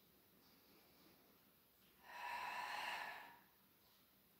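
A person's forceful, breathy exhalation through the mouth, about two seconds in and lasting over a second: the Pilates out-breath taken on the effort of a seated oblique twist.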